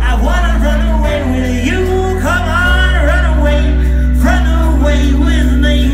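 Live band music: a male singer over loud, deep sustained bass notes that change pitch twice.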